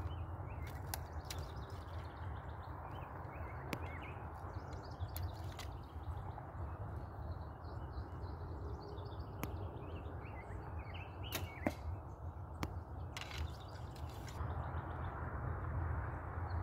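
Wind rumbling on the microphone, with birds chirping in the background and a few sharp clicks of equipment handling about two-thirds of the way through.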